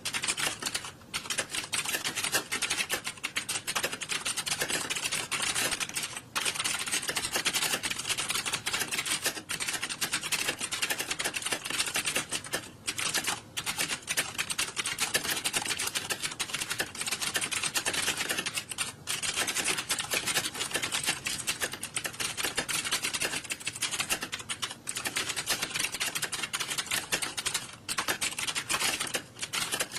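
Many people typing on computer keyboards at once, as in an exam hall: a dense, continuous clatter of overlapping keystrokes with a few brief lulls.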